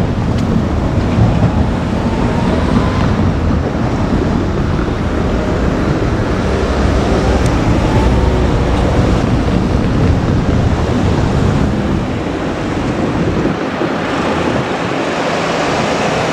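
JR Kyushu 787-series train running past: a loud, steady rush of wheels and air with wind on the microphone, the low rumble dropping away about 13 seconds in.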